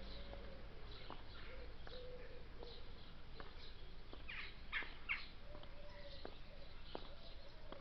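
Songbirds chirping, with a louder cluster of quick chirps about halfway through. High-heeled shoes click on the pavement about every 0.7 s as a person walks closer.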